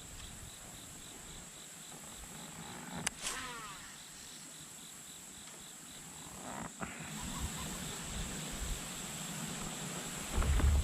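Insects buzzing steadily and high-pitched, with a regular chirp about three times a second that stops about seven seconds in. A short gliding chirp comes about three seconds in, and a low rumble near the end.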